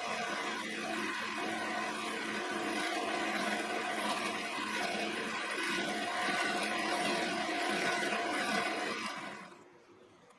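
Motor-driven cup wheel of a Quorn tool and cutter grinder running steadily with a hum, grinding the flutes of an end mill as the cutter is worked against the wheel. The sound stops quickly about nine and a half seconds in.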